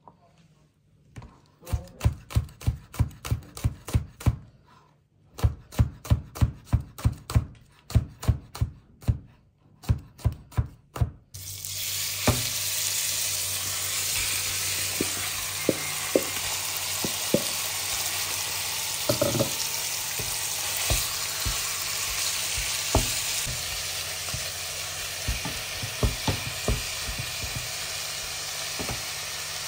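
A knife chopping green chillies on a cutting board: quick, even strokes, about three or four a second, with one short pause. About eleven seconds in, a steady sizzle takes over as minced meat fries in hot oil in a pan, with occasional taps and scrapes of a wooden spatula stirring it.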